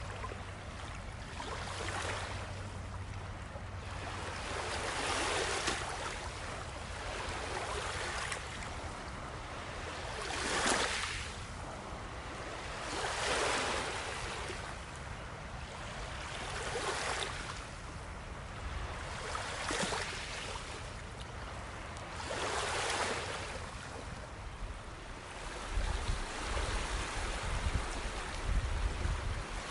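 Ocean waves washing onto a shore, the surf swelling and fading in surges every few seconds, with a low wind rumble near the end.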